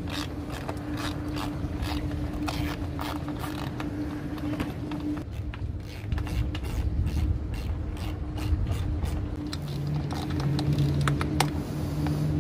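Ratchet wrench clicking in quick runs of strokes, tightening the nuts that hold the awning to its mounting bracket, over a steady low hum.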